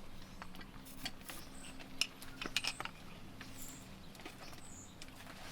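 Scattered light metallic clicks and clinks of hand tools and coilover parts being handled, about a dozen short knocks spread unevenly with no steady rhythm.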